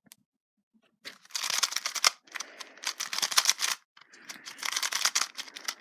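GAN 251M magnetic 2x2 speed cube being turned rapidly during a quick solve: dense plastic clicking and clacking that starts about a second in, with a short break just before the four-second mark.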